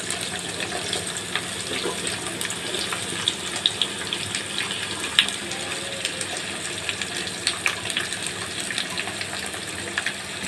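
Chopped onions, freshly tipped in, sizzling in hot mustard oil in a kadhai: a steady hiss with many small pops and crackles.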